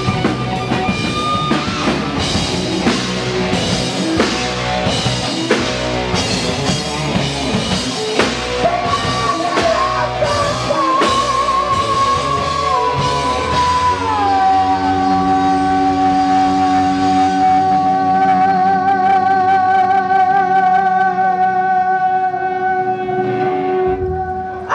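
Live heavy metal band: pounding drums and distorted electric guitar, then the song's ending with a sustained chord while the singer holds one long high note with vibrato for about the last ten seconds, which cuts off near the end.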